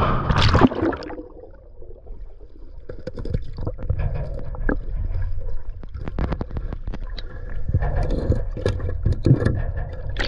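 Lake water sloshing and splashing around someone wading and reaching underwater to reattach a magnet fishing magnet to a sunken sign, with scattered short knocks and scrapes of handling. Loudest in the first second.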